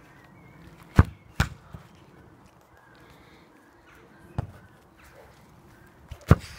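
A football being kicked on grass: four sharp thuds, a close pair about a second in, another past halfway and one near the end.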